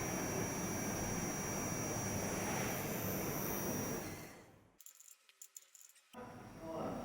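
Mantis designer lamp buzzing while lit: a steady electrical buzz with a thin high whine. About four seconds in it fades away, leaving near silence with a few faint clicks, and a quieter buzz comes back about six seconds in.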